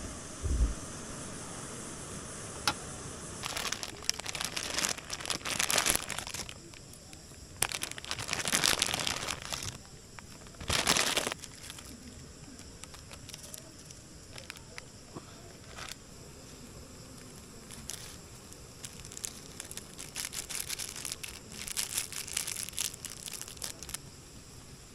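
Crinkly material being handled, in several bursts of crinkling and rustling with a few sharp clicks between them.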